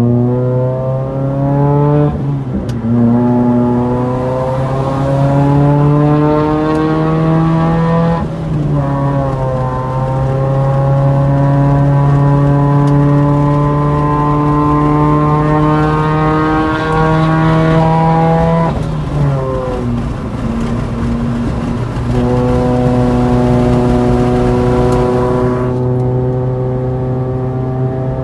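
Proton Inspira engine under acceleration, its pitch climbing steadily through long pulls and dropping back at gear changes about 2, 8 and 19 seconds in.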